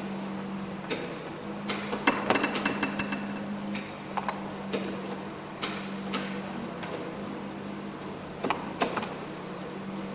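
Motorised plywood sculpture folding its hinged panels down: a steady low motor hum with irregular clicks and knocks from the mechanism and panels, a rapid cluster of them about two seconds in.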